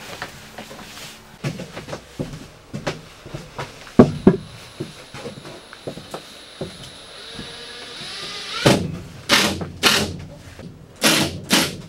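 Knocks and taps from OSB wall panels being fitted against wooden framing, with two sharp knocks about four seconds in. Near the end a cordless drill-driver runs in several short bursts, driving screws into the panels.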